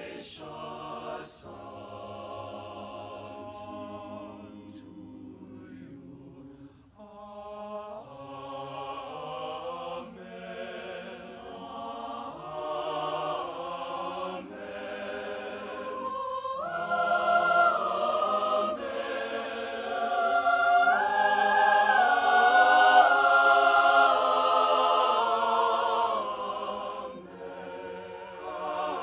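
Mixed-voice choir singing a choral blessing in parts, building in volume from a soft start to a full, loud swell in the middle before easing back near the end.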